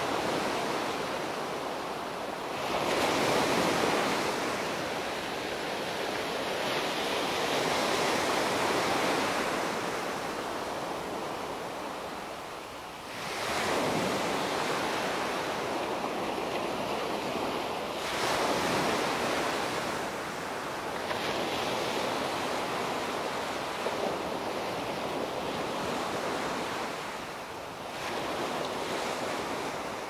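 Small waves breaking and washing up a sandy beach. The surf noise swells and falls away in surges every few seconds.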